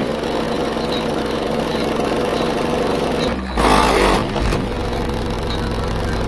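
Heavy bass from a car's subwoofer system driven by a CT Sounds Team 3000.1D amplifier, heard from outside the car as a loud, steady low rumble, with a louder burst a little past halfway.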